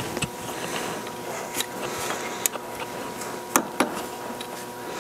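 A steel hand tool tapping and clicking against a set-screw collar on a gear shaft in a Monarch 12CK lathe gearbox, working at what looks like a broken set-screw tip. There are a handful of sharp metallic ticks, the loudest two close together a little past halfway, over a steady faint hum.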